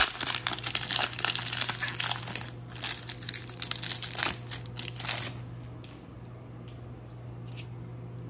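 Foil trading-card pack wrapper crinkling and tearing as it is ripped open and peeled off the cards, for about five seconds. After that it turns much quieter, with a few faint ticks as the stack of cards is handled.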